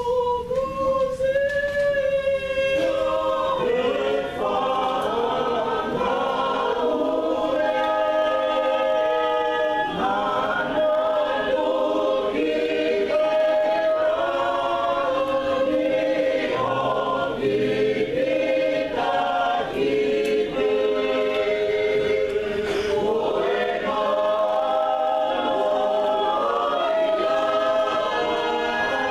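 A choir singing unaccompanied in harmony, with long held notes. One voice carries the line at first, and the other voices join about three seconds in.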